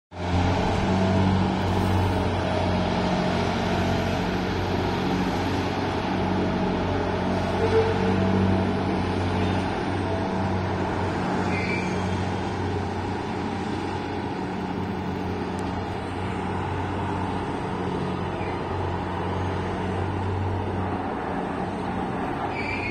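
Diesel engine of a ship-mounted grab crane running with a steady low drone that swells and eases as it works, the deepest hum dropping away about three seconds before the end.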